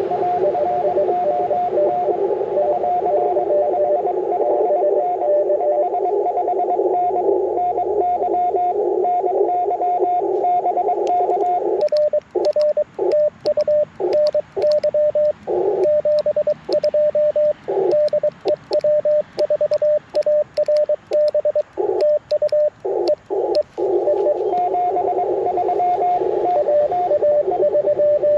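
Icom IC-705 transceiver audio in CW mode: hiss through a narrow filter with a faint incoming Morse code signal. About twelve seconds in, the operator transmits for about twelve seconds, a louder sidetone keying Morse with faint paddle clicks while the hiss drops out between characters. Then the filtered hiss and a faint incoming Morse signal come back.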